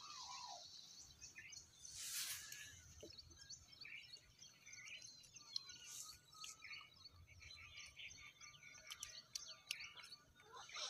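Faint outdoor ambience of small birds chirping repeatedly in the background, with a couple of brief bursts of rustling noise.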